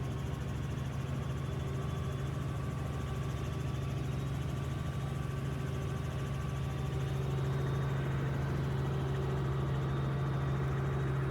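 Helicopter cabin noise in flight: the steady low drone of the rotor and engine, with fainter steady tones above it, getting slightly louder about two-thirds of the way through.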